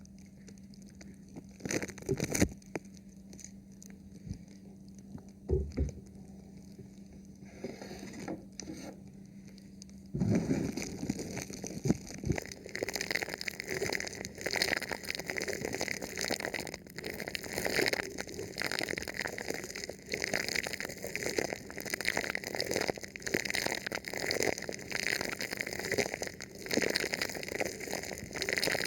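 Thin plastic film over a microphone being touched and rubbed: a few separate taps and crinkles, then from about ten seconds in a dense, continuous crackling rustle. A faint steady hum lies underneath.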